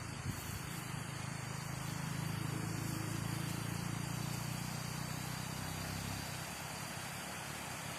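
Waterfall water rushing in a steady hiss, with a thin high steady tone above it. A low rumble swells about a second and a half in and fades out after about six seconds.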